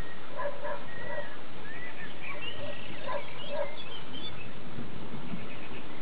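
A dog barking in two short bunches of a few barks each, one about half a second in and one around three seconds in, over a steady hiss, with birds chirping now and then.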